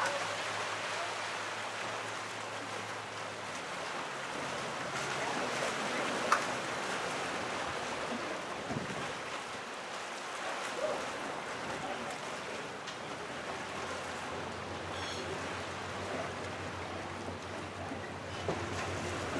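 Wind buffeting the microphone over rushing, choppy water, with a low steady hum at times and a single sharp knock about six seconds in.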